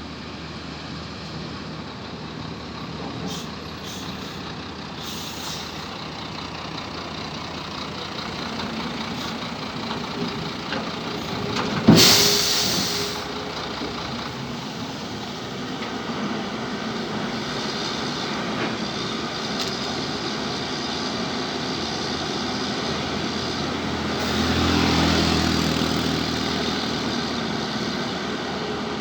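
Excavator's diesel engine and hydraulics running steadily while it digs and loads soil. There is a single sharp, loud clank about twelve seconds in, and the engine works harder for a few seconds near the end.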